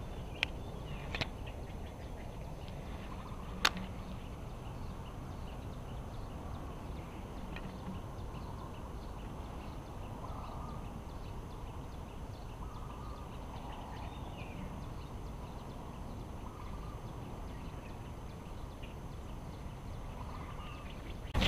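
A few sharp clicks from a baitcasting reel being handled during a cast, the loudest about three and a half seconds in, over steady outdoor background noise heavy in the low end.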